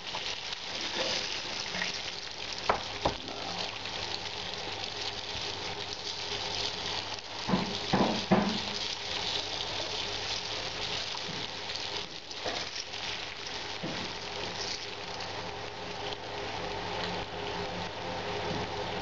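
Breaded beef steaks sizzling as they shallow-fry in hot oil in a frying pan. There are a few short knocks, about 3 seconds in and louder around 8 seconds, as pieces are moved with metal tongs.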